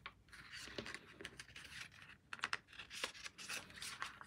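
Pages of a small paper CD booklet being turned by hand: faint rustling of paper with quick, irregular light taps and scrapes of fingers on the pages.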